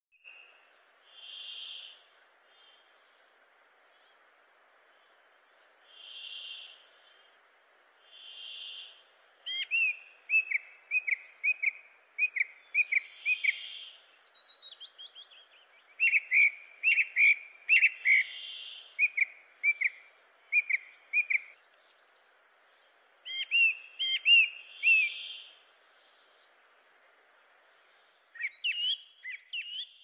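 Songbirds calling: runs of short, sharp chirps at about two a second, with softer drawn-out notes every few seconds, over a faint steady hiss.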